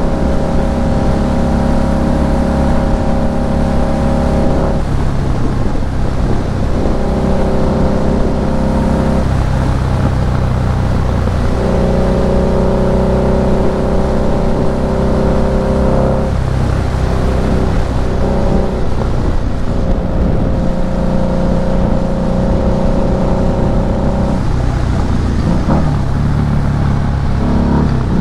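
2008 Harley-Davidson Night Rod Special's V-twin engine running under way. Its pitch holds steady for a few seconds at a time, then breaks and changes several times as the throttle and gears change, over a constant rushing noise.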